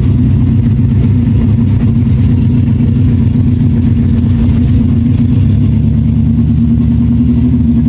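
Nissan S13 hatchback's engine running steadily under way, a loud low drone heard from inside the cabin.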